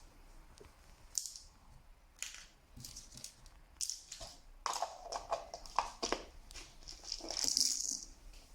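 Small plastic toy pieces and packaging being handled: scattered rustles and light clicks, with a longer, louder rustle near the end.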